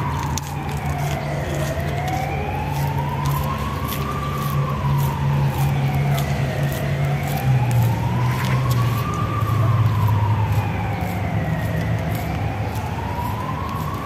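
Emergency vehicle siren in a slow wail, rising and falling about every five seconds, over the low rumble of road traffic.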